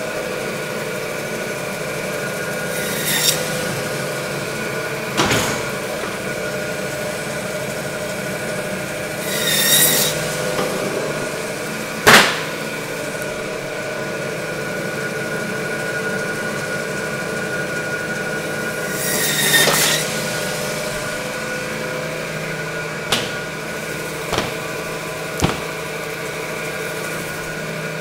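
Meat band saw running steadily, its blade cutting through lamb bone in three short bursts. A few sharp knocks come in between.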